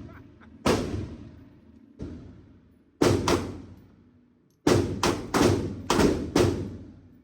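Gunshots at an indoor shooting range, about ten in all: single shots at first, then a quick string of five or six near the end, each echoing off the range walls.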